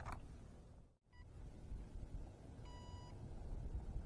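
Electronic beeps from the FX9630 RC jet's radio system as it powers up and binds to its transmitter: a short blip about a second in, then one clear beep lasting under half a second near three seconds. Faint low rumble underneath.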